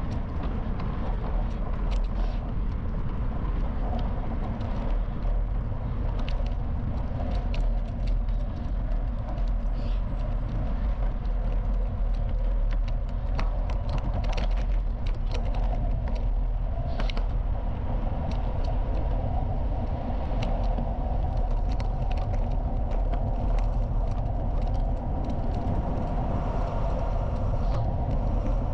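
Bicycle riding along a gravel path: a steady low rumble of tyres rolling over gravel, with many scattered sharp clicks and ticks throughout.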